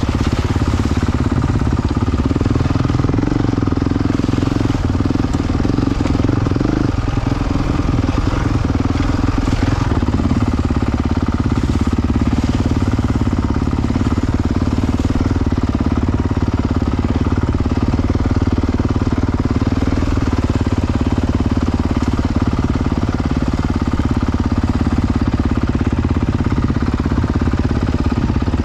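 Dirt bike engine running steadily at low trail speed, heard close up from the bike that carries the camera.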